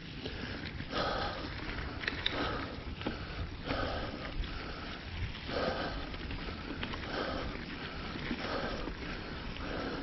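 A man breathing hard, panting in and out about once every second and a half as he catches his breath after a long uphill bike climb.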